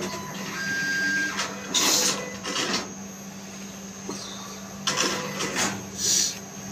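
ATM cash dispenser whirring as it counts out and presents the banknotes, with a short beep about half a second in. Then come several short rustles as the stack of notes is pulled from the slot and handled.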